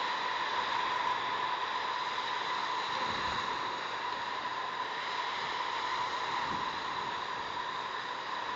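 Steady hiss with a faint constant high whine, the noise floor of an outdoor webcam's microphone.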